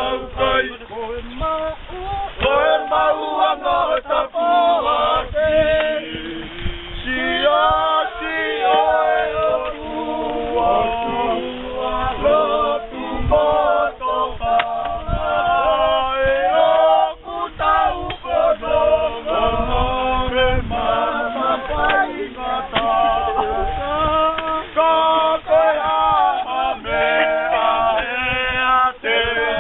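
A group of men singing a song together, unaccompanied.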